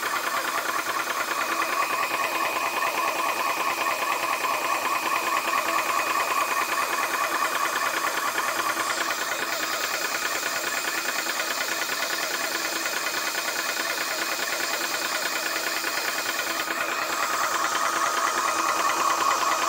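ToAuto 4500 PSI PCP high-pressure air compressor running loud with a fast, even pumping rhythm and a steady high tone, a little louder in the last few seconds, as it nears full pressure just before its automatic shut-off.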